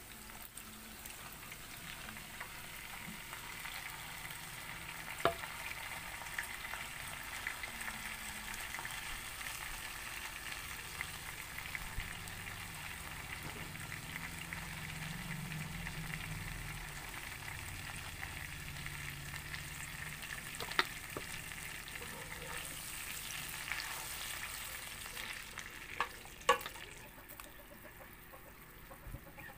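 Chopped garlic sizzling in hot oil in a frying pan as a dark sauce with calamansi is poured in through a mesh strainer. A few sharp knocks come through, the loudest near the end, after which the sizzle thins out.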